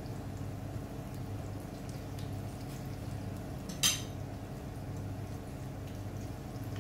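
Breaded hammour fillets shallow-frying in a pan of oil, the oil giving faint scattered crackles over a steady low hum. A single sharp click stands out about four seconds in.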